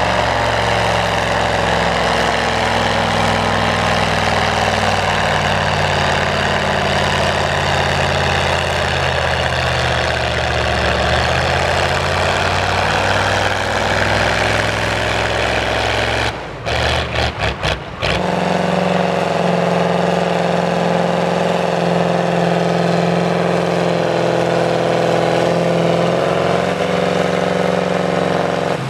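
Diesel pulling-tractor engines running hard under load while dragging a pull sled: first an International tractor's engine running steady with a slowly wavering pitch, then, after a few brief drop-outs a little past halfway, a different engine, a Massey Ferguson 1155's, running steady at a fixed pitch.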